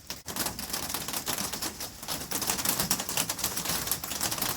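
Heavy rain pattering on the covered gazebo shelter, a dense fast run of irregular drop taps that starts abruptly just after the beginning and carries on steadily.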